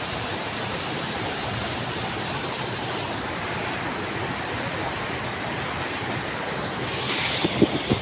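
Fast-flowing stream rushing over rocks below a waterfall, a steady, even wash of water noise. A few short knocks near the end.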